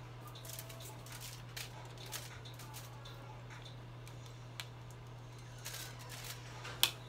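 Light rustling and crinkling of a sheet of aluminium hair-colouring foil being handled and brushed, with one sharp tick near the end. A steady low hum runs underneath.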